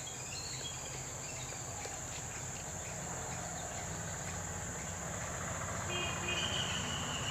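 Insects droning steadily at a high pitch over a faint low rumble, with a brief high chirping call near the end.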